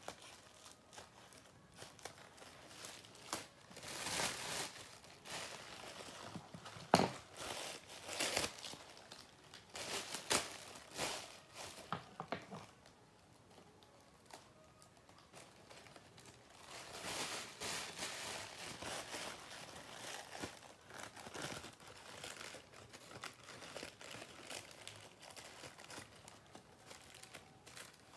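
Crinkling and rustling of squishy stuffing being cut into small pieces with scissors, with scattered sharp snips. It comes in irregular spells, with a quieter stretch about halfway through.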